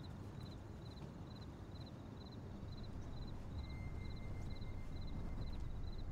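A cricket chirping steadily, about two chirps a second, each a quick triple pulse, over a low rumble that grows a little louder about halfway through.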